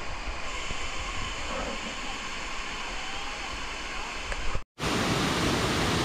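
Waterfall rushing as a steady, even wash of falling water. It cuts out for a split second about three-quarters through and comes back a little louder.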